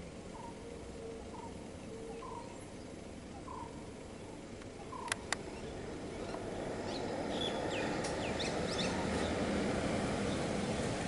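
A bird calls in short, rising notes about once a second, with two sharp clicks about five seconds in. In the second half, the idling engine of a stopped truck grows louder while higher bird chirps sound over it.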